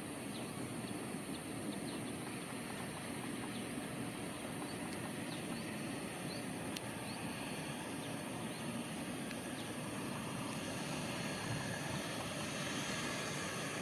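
Boeing 787-8 airliner's jet engines running at low power as it taxis slowly on a wet runway: a steady rush that grows a little louder near the end as the aircraft comes close.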